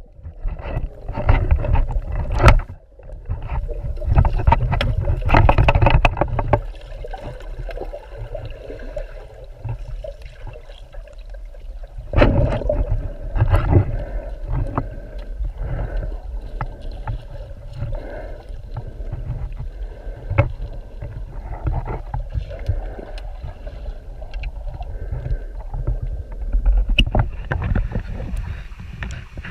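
Muffled water sloshing and gurgling around a camera in the water while a diver spearfishes, with low rumbling swells and scattered sharp knocks.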